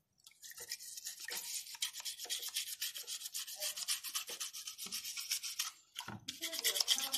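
An old toothbrush scrubbing a plastic scale-model part in a bowl of water, in quick back-and-forth bristle strokes that brush off paint softened by oven cleaner. The scrubbing stops for a moment about six seconds in, then starts again.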